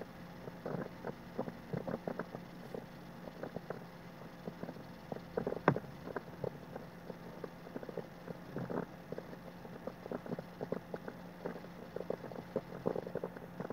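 Soft, irregular ticks and scratches of a watercolour brush making short feathery strokes on paper, over a low steady hum. One sharper tap comes about six seconds in.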